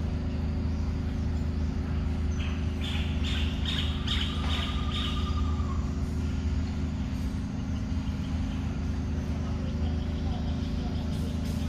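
Birds chirping, with a quick run of high chirps and a held whistled note a few seconds in, over a steady low engine-like rumble that is the loudest sound throughout.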